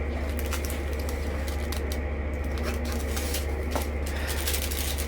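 Light clicks and rattles of small plastic pieces being handled, typical of diamond-painting drills and storage containers, over a steady low hum.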